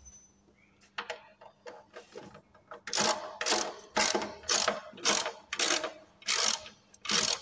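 Socket ratchet wrench tightening a bolt through an iron bench frame into wood, its pawl clicking in short back-and-forth strokes. A few scattered clicks come first, then a steady run of strokes about twice a second starting about three seconds in.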